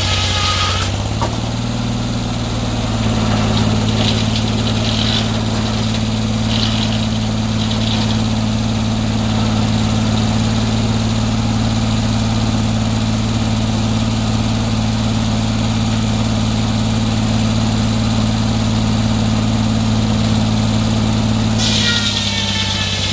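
Sawmill engine running steadily, its pitch stepping up slightly about a second in and dropping back near the end.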